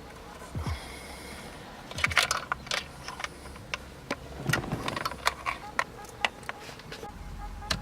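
Irregular clicks, knocks and rattles of hands and tools working on a car's steering column as the steering wheel is taken off, with a few short dull thuds.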